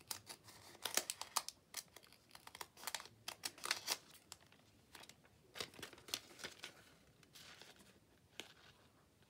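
Thin plastic acetate sheets being picked up and handled, crinkling and crackling in irregular bursts, busiest in the first few seconds and again about six seconds in.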